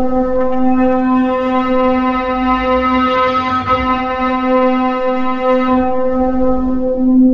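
Black MIDI played through a synthesized piano sound: thousands of notes at once merge into one steady, bright drone on a single pitch. Its highest overtones fade away near the end.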